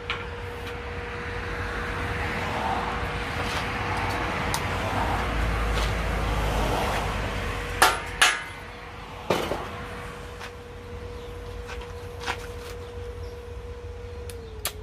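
Stick-welding arc with a 2.5 mm electrode, crackling and hissing for about seven seconds, then stopping. A few sharp knocks on metal follow, the loudest two close together just after the arc stops. A steady hum runs underneath throughout.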